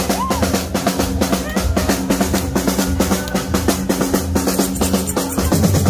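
A street percussion troupe drumming live on marching snare and larger drums, a fast, dense beat of rapid strikes over a steady low hum of music.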